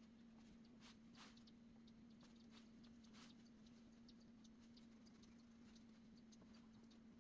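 Near silence: a steady low hum, with faint scattered ticks and scratches from a small paintbrush dabbing into the gaps of a wooden dovetail joint.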